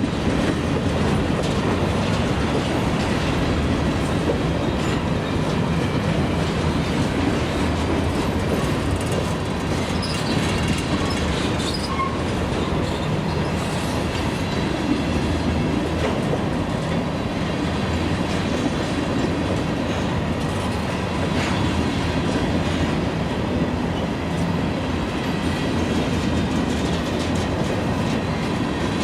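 A CSX freight train's cars rolling past, steel wheels running on the rails with a steady noise.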